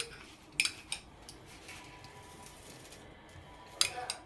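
A metal spoon or ladle clinking against a cooking pot, two quick pairs of clinks, one about a second in and one near the end.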